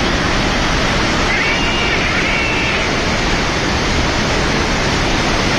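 Flash-flood river in spate: a loud, steady rush of churning floodwater. A faint voice calls out briefly over it about a second and a half in.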